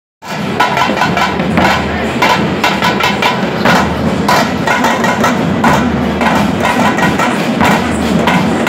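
Dappu frame drums and a barrel drum beaten with sticks together in a loud, fast, steady rhythm.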